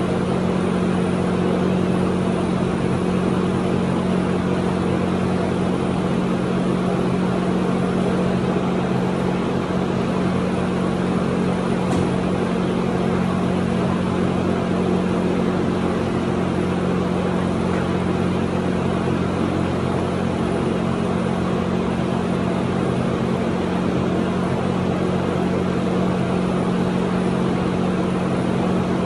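Steady drone of a running motor, with an even low hum and hiss that holds unchanged throughout.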